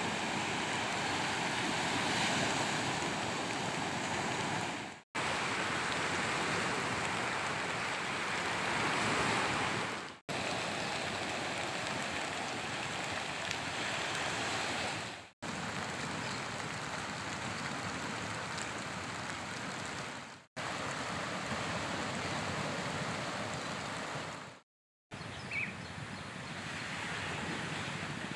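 Steady rushing noise of water outdoors, heard as a run of clips about five seconds long, each ending in a sudden cut to silence.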